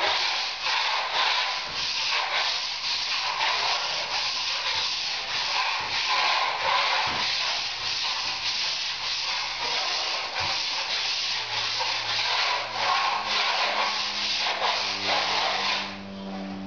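Steel scraper dragged in repeated strokes across a plaster ceiling, scraping back the hardened second base coat of plaster before the top coat. The scraping stops near the end.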